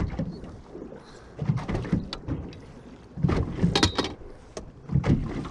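Irregular knocks and clatter of gear and handling in a fishing boat, in three clusters, the loudest about three seconds in.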